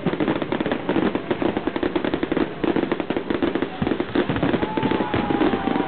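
Fireworks display going off in a dense, unbroken barrage of rapid bangs and crackles.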